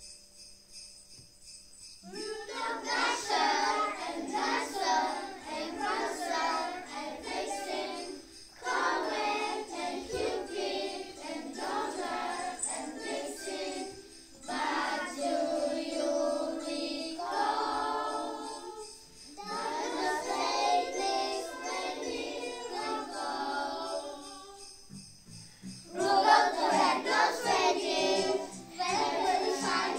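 A group of young children singing a Christmas song together over backing music with jingle bells. The singing comes in about two seconds in and goes in phrases of several seconds with short breaks between them.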